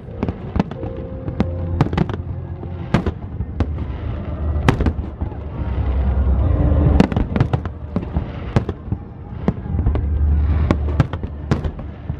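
Aerial fireworks bursting in quick succession: a dense run of sharp bangs and crackles over a low rumble, with the biggest bang about seven seconds in.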